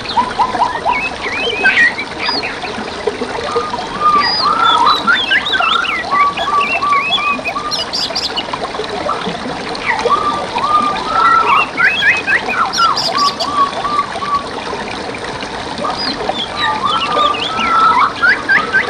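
Songbirds singing in quick whistled and chirping phrases over steady trickling water, with a similar song phrase coming back about every six seconds.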